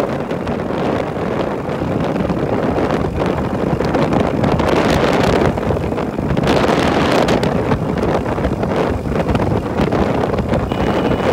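Wind buffeting the microphone of a bike in motion on a road, a continuous rushing noise that rises and falls in gusts over a low rumble of the ride.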